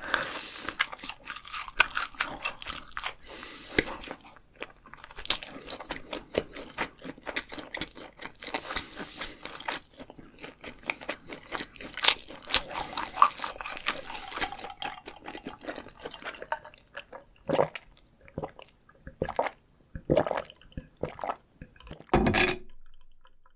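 Close-miked mouth sounds of eating battered fried food: dense crisp crunching and wet chewing, thinning out into separate chews and swallows after the middle, then gulps of water from a glass jug near the end.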